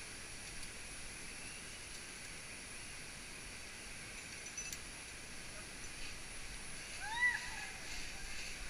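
Rainforest ambience: a steady high-pitched hiss, with one short rising-and-falling call about seven seconds in.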